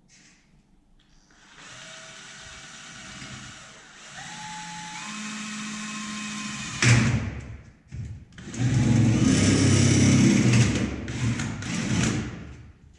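Electric power tool motor speeding up in steps over several seconds. About seven seconds in it suddenly gets loud, then runs loud and heavy for about four seconds before dying away near the end.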